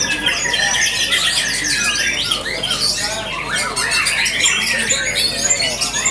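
White-rumped shamas (murai batu) singing at once in a dense, unbroken chorus of rapid, varied high-pitched phrases and whistles.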